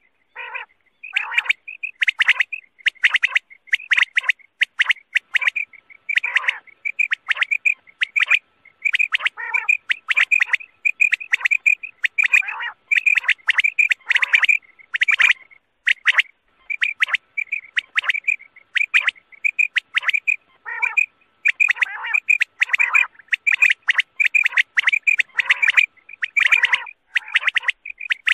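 Quail calls repeated over and over in quick succession, short sharp notes about one to two a second with little pause: a recorded quail call played as a lure for quail hunting.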